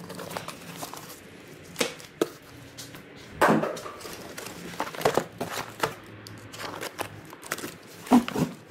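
Cardboard boxes and packing material being handled: irregular rustling, scraping and knocks of cardboard, with the loudest scuff about three and a half seconds in and a sharp knock near the end.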